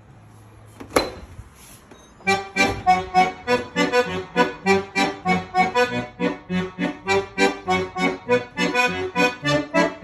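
A single sharp click about a second in, then instrumental music starting about two seconds in: quick, evenly repeated notes and chords, about three to four a second.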